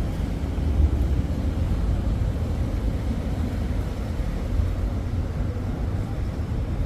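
Steady low rumble of a river boat's engine, with a haze of water and wind noise over it.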